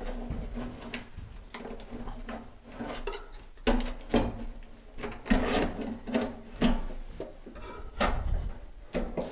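Stainless steel double kitchen sink being pried and worked loose from a countertop it was stuck to with a bead of silicone: irregular creaks, scrapes and knocks that grow louder and more frequent from about a third of the way in.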